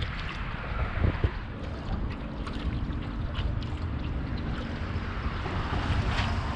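Wind buffeting the microphone over water lapping at a small boat, with a couple of knocks about a second in.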